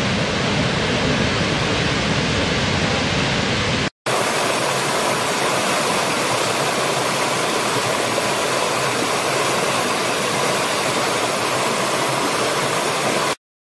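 Waterfall: a steady rush of falling water. It cuts out for a moment about four seconds in, then comes back with more hiss and less low rumble, and stops abruptly near the end.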